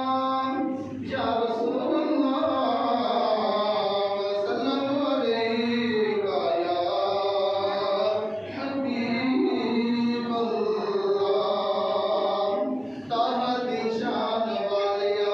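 A man chanting a naat unaccompanied into a microphone in a reverberant hall. He sings long, wavering, melismatic phrases, pausing briefly for breath about a second in, at eight and a half seconds, and at thirteen seconds.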